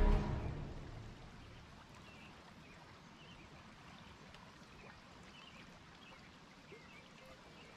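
Background music fades out in the first second, leaving a faint, steady stream of running water with a few faint bird chirps.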